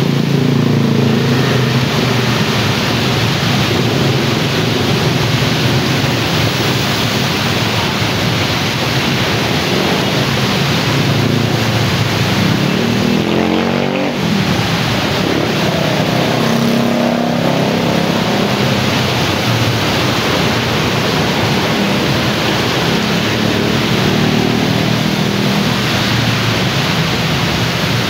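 Dense street traffic on a wet road: a steady stream of small motorbike engines and cars passing, their pitch rising and falling as each goes by, over a constant hiss of tyres on the wet asphalt.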